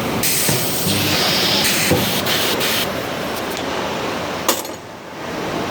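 Nut projection welding machine at work: bursts of hissing air and noise, with a sharp click about four and a half seconds in.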